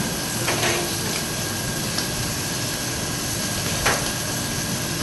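Shrimp frying in oil in a stainless steel pan, a steady sizzle, with two short knocks, one about half a second in and one near the end.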